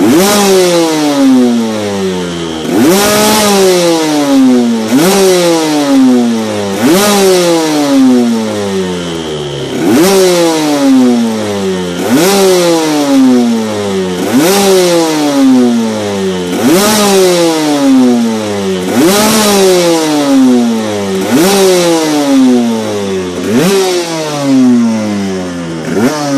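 Aprilia RS125's Rotax 122 two-stroke single, fitted with a Cinquini expansion-chamber exhaust and DLR silencer, revved while standing still: about a dozen sharp throttle blips, one every two seconds or so. Each one climbs quickly and falls back slowly.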